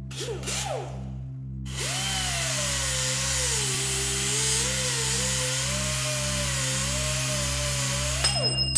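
A power tool runs loudly for about six seconds, its motor pitch dipping and rising as it works, then cuts off near the end. A slow pulsing music drone plays underneath.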